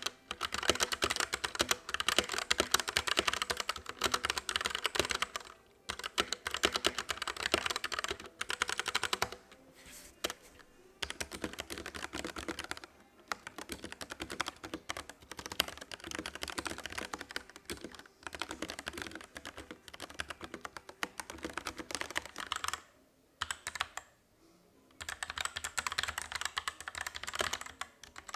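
Rapid typing on mechanical keyboards, the keys clacking in bursts of a few seconds with short pauses between them, as different keyboard switches are typed on in turn for a sound comparison.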